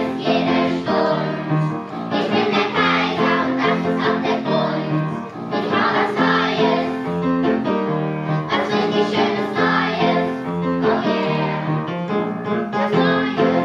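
Children singing a song with instrumental accompaniment.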